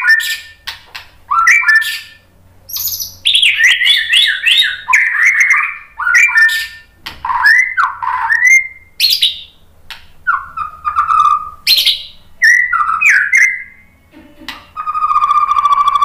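White-rumped shama (murai batu) singing: a varied run of loud whistled phrases, quick rising and falling notes and short sharp chips with brief pauses between them. About a second before the end it breaks into a long, even buzzing trill.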